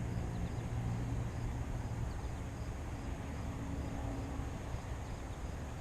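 Steady outdoor background noise: a low hum and rumble with no distinct event.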